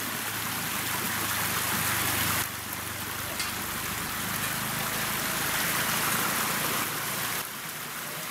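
Stream water rushing steadily. The sound drops suddenly in level twice, about two and a half and seven and a half seconds in.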